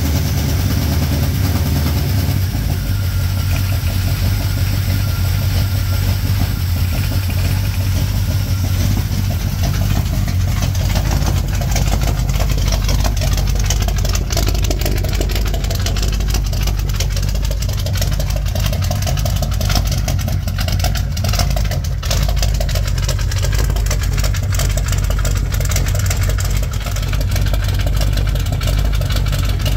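1987 Chevrolet K10 pickup's carbureted engine idling steadily. It is warming up on its first run after a blown head gasket was replaced.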